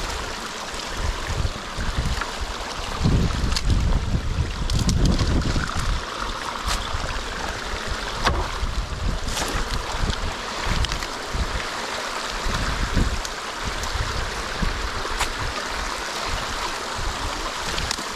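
Water rushing and swirling through a freshly opened breach in a beaver dam as a potato rake drags sticks and mud out of it. Scattered snaps and knocks come from sticks and the rake, over a low wind rumble on the microphone.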